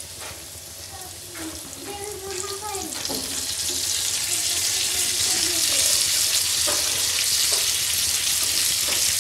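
Hot oil with cumin and garlic sizzling on a flat tawa as spice-stuffed okra pieces are laid into it. The sizzle swells from about three seconds in as more pieces go into the oil.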